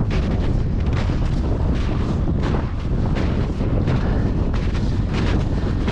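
Loud, continuous wind buffeting on the microphone: a heavy, ragged rumble without a break.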